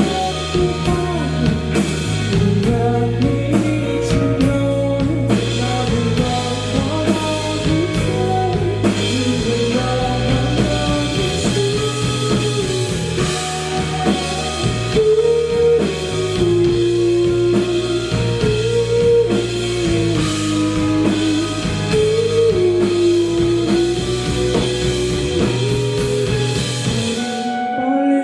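Live rock band playing: a melodic electric guitar line over bass and drum kit. Near the end the full band cuts off and only a lighter guitar part goes on.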